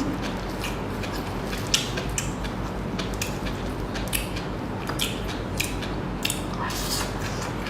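Close-up eating sounds: irregular crackling clicks of food being bitten and chewed, one or two a second, over a steady low hum.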